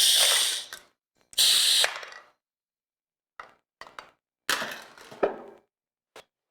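Pneumatic aluminum can crusher working: two loud, sudden blasts of air hiss as the cylinder strokes and exhausts through its mufflers, then several shorter, weaker hisses and mechanical clanks.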